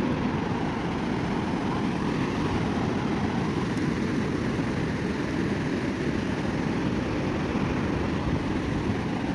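Steady rushing noise of wind on the microphone and surf at the shoreline, even throughout with no distinct events.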